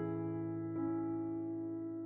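Slow background piano music with long held notes; a new note comes in under a second in.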